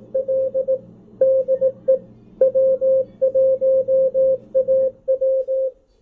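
Machine-sent Morse code (CW) from amateur station W1AW on 160 meters, played by a Malahit DSP SDR receiver: one steady beep tone keyed in rapid dots and dashes over band noise and hiss. The keying stops shortly before the end, leaving only the receiver's noise.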